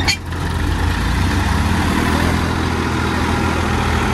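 Massey Ferguson DI tractor's three-cylinder diesel engine running steadily under load as the tractor and its trailer struggle in deep mud, the big rear tyre churning through the mire. A single sharp click comes right at the start.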